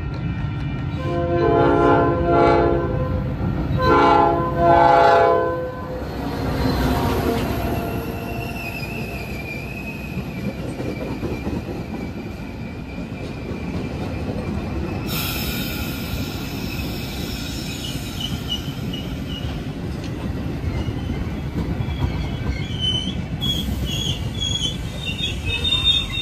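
Metra commuter train sounding its horn in several blasts over the first five seconds as it comes in. Then a steady rumble as its bilevel gallery cars run along the platform, with high wheel squeal from about eight seconds on.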